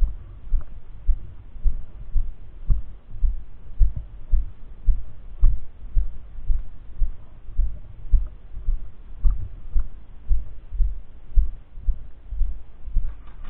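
Footsteps of a walking player, heard as low thuds about two a second, jolting a body-worn camera's microphone.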